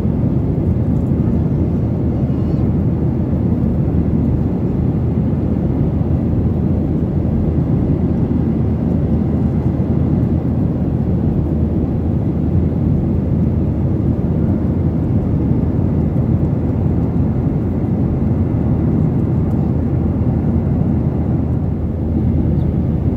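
Steady low engine and air noise inside a jet airliner's cabin, even throughout with no distinct events.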